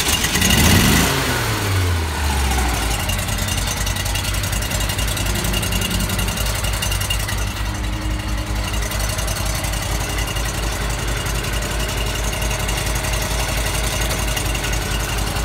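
VacTron CV573GT vacuum excavator's engine starting up and running with its water pump switched on: a sudden loud start whose pitch falls over the first couple of seconds, then a steady drone with an even low pulse as the pump pushes water through the hose.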